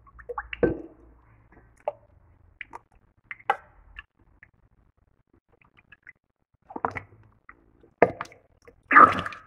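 Scattered clicks, knocks and soft squishes of utensils and containers as mascarpone cheese is spooned into a bowl and whipping cream added, with a louder clatter near the end.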